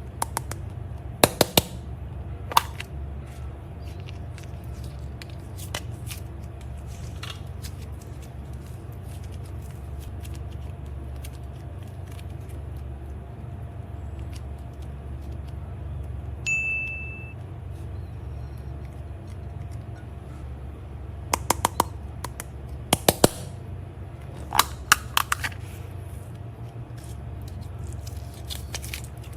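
Slime being handled, giving scattered sharp clicking and popping sounds in small clusters near the start and again in the second half, over a steady low hum, with one short high beep about halfway through.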